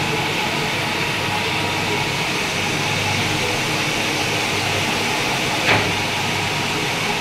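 Lathe running steadily with a constant machine hum and whine, and one short sharp knock near the end.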